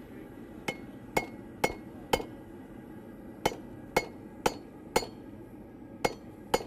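Hand hammer striking hot steel over a hot cut tool on the anvil to cut the piece off, ten ringing blows about two a second, in two sets of four and then two more with short pauses between.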